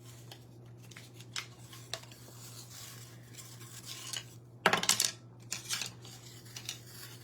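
Small hard garland craft pieces clicking and clattering as they are handled on a table, with a louder clatter about two-thirds of the way through. A steady low hum runs underneath.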